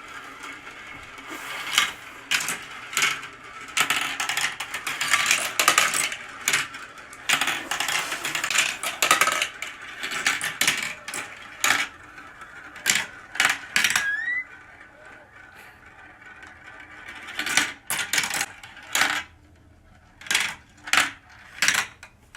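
Marbles rolling and clattering down a marble run: a busy rattle of rolling with many sharp clicks and knocks as the marbles drop and strike the track. It thins out in the second half to scattered single clicks.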